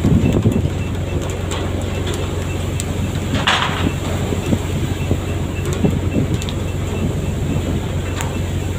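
Fishing boat's engine running with a steady low drone, with scattered light clicks and a brief hiss about three and a half seconds in.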